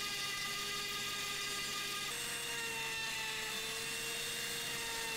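Dremel rotary tool running steadily with a small polishing wheel pressed against a watch case back, polishing out scratches; its whine steps up slightly in pitch about two seconds in.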